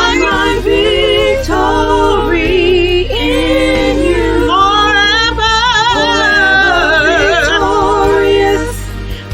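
Gospel worship singers singing a slow song, several voices holding long notes with wide vibrato over a steady low instrumental accompaniment. Near the end the sound briefly drops before the next phrase.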